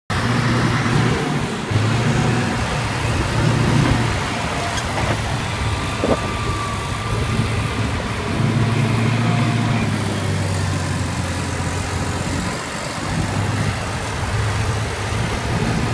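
Grapple skidder's diesel engine working hard under load, revving up and easing off several times as it drags a pickup truck through deep mud, with a short knock about six seconds in.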